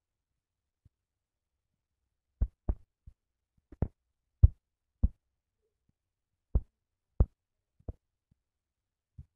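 About a dozen soft, dull taps at irregular intervals: fingertips tapping a smartphone's touchscreen keyboard while typing.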